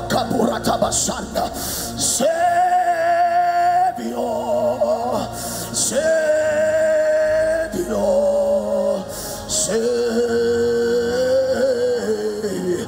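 Slow worship music: a sequence of long held, slightly wavering notes that change pitch every two seconds or so.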